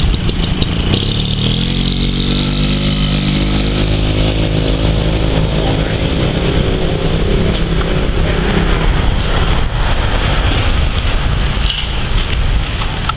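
A road vehicle's engine running close by on the street, its note rising about two seconds in and then slowly falling away over several seconds, over steady traffic noise.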